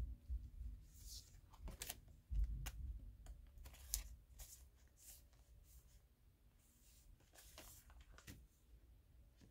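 Glossy photo prints and a silver foil packet being handled: a series of short slides, taps and rustles as a print is laid down and another is drawn out of its foil wrapper, with a low bump about two and a half seconds in.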